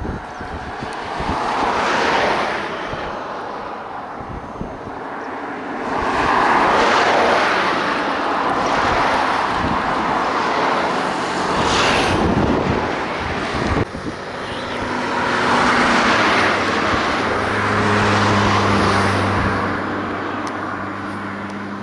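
Trains running on an elevated concrete railway viaduct: a rushing rumble of wheels that swells and fades in waves. A steady low hum comes in about halfway through and grows stronger near the end.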